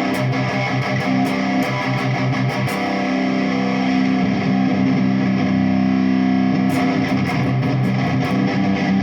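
Jackson Dinky electric guitar played with the tone knob fully open, a test capacitor wired to the knob: held low notes with runs of quick picked strokes in the first few seconds and again near the end.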